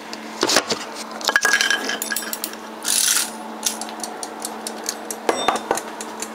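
Clicks, knocks and a short scrape as a mechanical wind-up kitchen timer is handled and set for 40 minutes, followed by its light, regular ticking. A steady low hum runs underneath.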